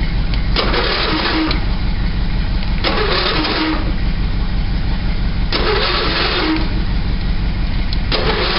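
Car engine running steadily just after a cold start in freezing weather, with a swishing sound carrying a short squeak repeating about every two and a half seconds.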